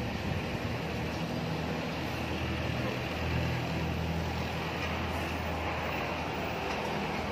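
A motor vehicle engine idling steadily, a low even hum.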